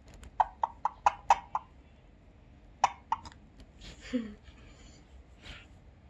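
Rose-ringed parakeet's beak tapping and pecking at a small terracotta pot: a quick run of about seven sharp clicks in the first second and a half, then a few more scattered taps about three seconds in.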